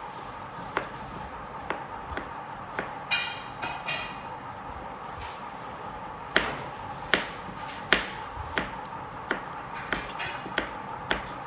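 Chef's knife cutting carrot into thin strips on a plastic cutting board: irregular sharp knocks of the blade through the carrot onto the board, louder and quicker in the second half. A brief ringing sound comes about three seconds in, over a steady background hum.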